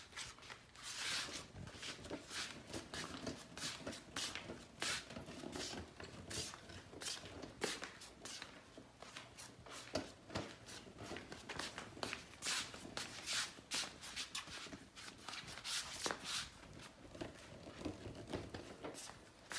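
Irregular rustling and scuffing of a fabric shopping bag on a wheeled trolley as it is handled and pulled along, with footsteps.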